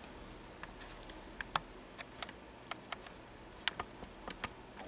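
Faint, irregular light clicks and taps of hands handling the camera as it is repositioned, with a small cluster of clicks near the end.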